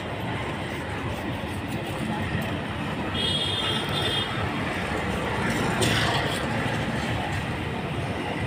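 Steady rumble of busy-street background noise with faint voices, a short high squeal a few seconds in and a brief sharp scrape about six seconds in.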